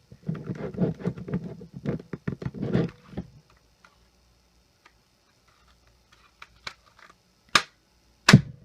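Hands working at a laptop's plastic CD drive: a rapid run of small clicks and rattles for about three seconds, then a pause, a few light ticks, and two sharp snaps near the end.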